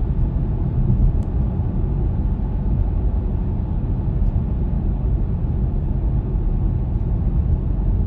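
Steady low road and tyre rumble inside a moving car's cabin, with no engine note or other distinct sound over it.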